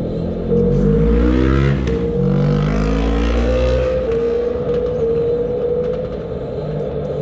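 Hydraulic pump and motor of a 1/14-scale RC hydraulic excavator running under load, with a steady whine and lower tones that rise and fall in pitch as the machine works. A hissy rush of noise comes in about a second in and fades around four seconds.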